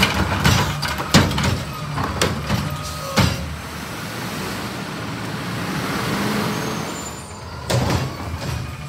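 Autocar Xpeditor garbage truck's diesel engine running while its Curotto-Can arm sets an emptied yard-waste cart down, with several sharp knocks and clatters in the first three seconds. The engine then swells as the truck moves off, and a short hiss comes near the end.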